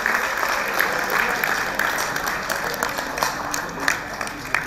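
Audience applauding, the clapping thinning and dying away toward the end into a few scattered claps.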